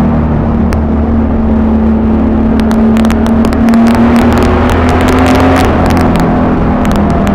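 Honda Valkyrie's flat-six engine through Cobra six-into-six straight pipes, running loud and steady under way, its pitch rising a little about halfway through and then holding. Sharp crackles come through on top of it.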